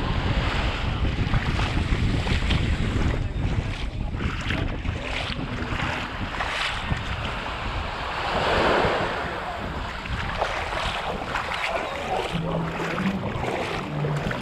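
Small waves breaking and washing up the sand at the water's edge, with wind buffeting the microphone as a low rumble. One wave rushes up louder about two-thirds of the way through.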